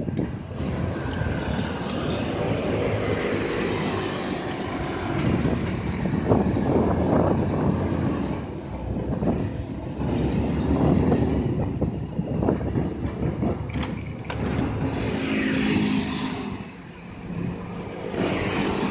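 City street traffic heard from a moving bicycle: cars, buses and motor scooters passing, with wind rumbling on the microphone. A passing engine hums more loudly about three-quarters of the way through.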